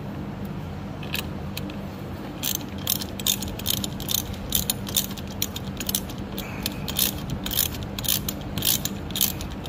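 Ratchet wrench clicking in short runs while tightening a battery terminal clamp, sparse at first and then about two or three clicks a second, over a steady low hum.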